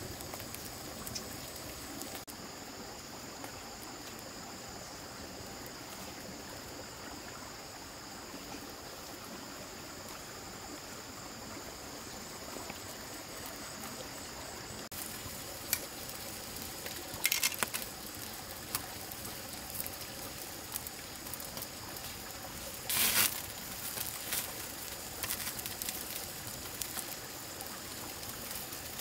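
Stream water running steadily, with a few short sharp sounds a little past halfway and again about four-fifths of the way through.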